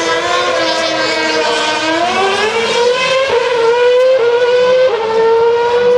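2012 Formula One cars' 2.4-litre V8 engines accelerating hard through the gears. The high-pitched note climbs and then dips back at each upshift, about three times in the second half.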